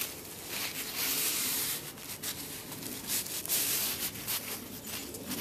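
Paper towel rubbed along the wooden top hand guard of a Mosin-Nagant 91/30 rifle, wiping off cosmoline softened in the sun. It goes in irregular hissing strokes, the longest about a second in.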